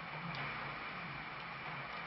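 Moving waterfall picture's motor-driven mechanism running with a steady high whine over a wavering low hum and a few faint ticks. Its grinding has been eased with grease on the moving parts but not stopped completely.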